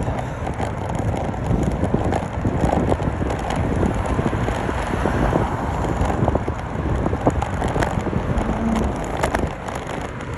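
Wind buffeting the microphone: a steady low rushing, crackling throughout.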